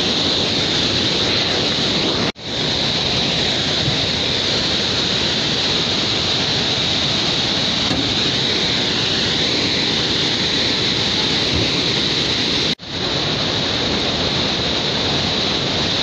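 Waterfall rushing down over rocks: a loud, steady roar of white water that cuts out abruptly for a moment twice, about two seconds in and about three seconds before the end.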